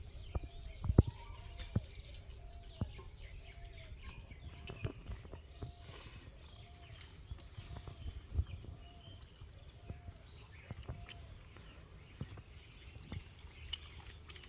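A bird calling over and over with a short arched note, about one and a half calls a second, stopping about three-quarters of the way through. Scattered knocks and clicks sound around it.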